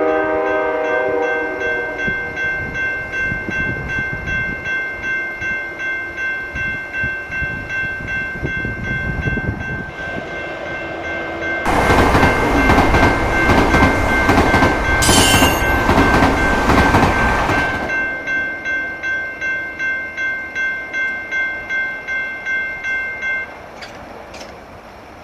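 Railroad crossing bell ringing about twice a second while a train horn sounds a chord that ends about two seconds in. Midway a train rumbles past loudly for about six seconds, with clickety-clack. The bell stops shortly before the end.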